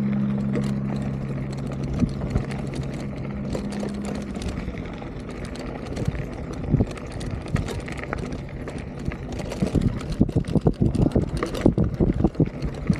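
Beach cruiser bicycle rattling over a rough gravel track. The jolts and knocks come quicker and louder in the last few seconds as the ride gets bumpy. A steady low engine hum runs under the first few seconds.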